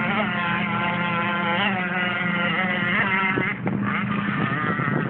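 Aquacraft Rio 51Z RC speedboat's two-stroke gas engine, fitted with a Bonzi tuned pipe, running at speed with a high whine. The pitch wavers up and down as the throttle changes, with a brief dip a little over three and a half seconds in.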